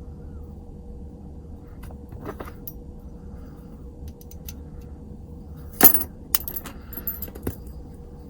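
Small metal lock parts clicking and clinking as a padlock is taken apart, with one sharp clatter about six seconds in followed by a few lighter taps.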